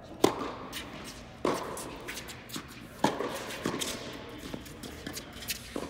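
Tennis balls struck by rackets in a doubles rally: four sharp pops about every one to two seconds, each echoing briefly in an indoor hall, with lighter ticks of ball bounces and footsteps between.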